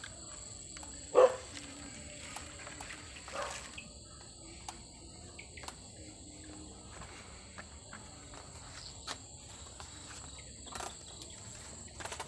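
Night insects keep up a steady, high-pitched drone. Faint clicks and rustles run through it, and a brief loud sound comes about a second in.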